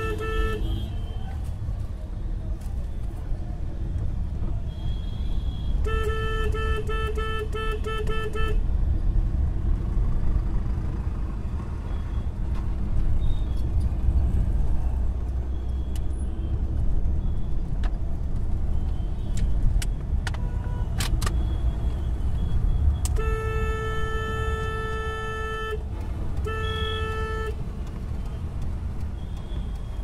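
Inside a moving taxi: steady low engine and road rumble, with car horns sounding. A run of quick honks comes about six seconds in, then a long horn blast around twenty-three seconds and a shorter one soon after.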